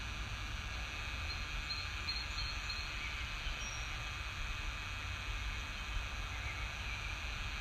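Steady background noise: a low rumble and hiss with a faint, steady high-pitched whine over it.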